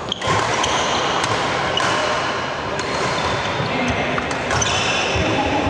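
Badminton doubles rally on a wooden indoor court: several sharp racket hits on the shuttlecock, with shoes squeaking on the floor, most plainly near the start and again near the end.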